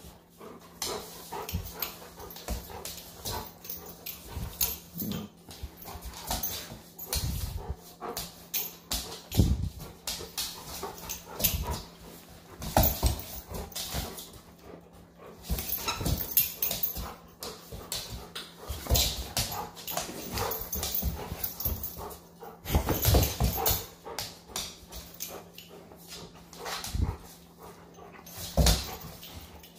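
A young dog playing tug-of-war over a fabric ring toy, making dog noises amid irregular scuffles and knocks, with louder bursts now and then.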